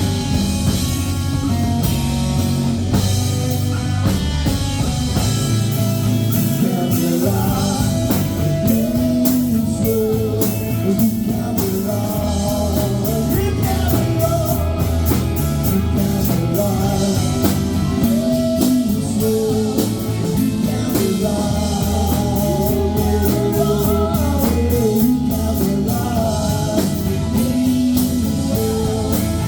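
Rock band playing a song with guitar and drum kit, a voice singing the melody over it.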